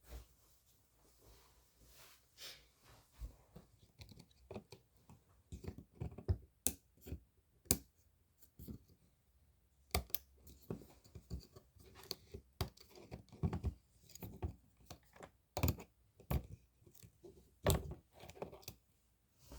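Irregular small clicks, taps and light scrapes of small hard objects being handled up close, denser in the second half.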